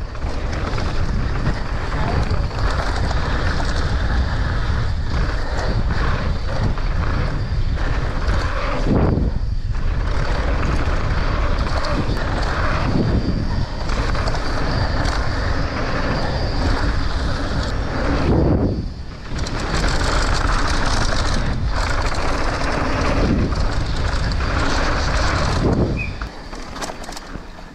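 Downhill mountain bike ridden fast over a rough, damp dirt trail: a steady rush of knobby tyres on dirt and gravel, rattling bike, and wind buffeting the camera microphone. The noise dips briefly twice and falls away near the end.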